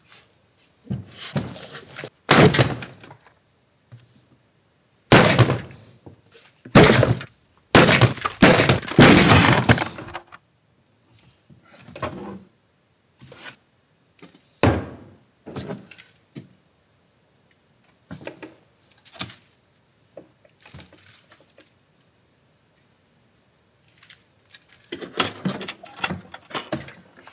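A box lid being smashed and torn open: a run of heavy thuds and cracking blows in the first ten seconds, then scattered lighter knocks and crackles, and a clatter near the end as the broken lid is lifted.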